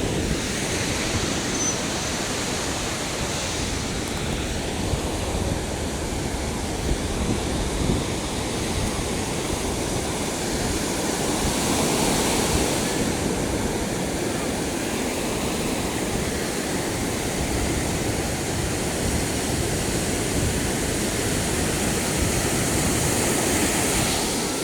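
Surf washing onto a beach, swelling twice, about halfway through and near the end, over steady wind rumbling on the microphone.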